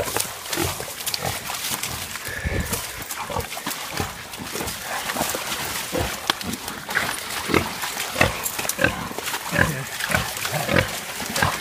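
A hog (a sow) squealing over and over while caught and held by hunting dogs, the calls coming about every half second in the second half.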